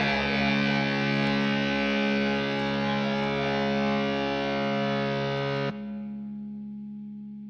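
Music: the closing chord of an acid-trash track, held as a steady distorted chord. About three quarters of the way through, its upper part cuts off suddenly and the low notes ring on, fading slowly.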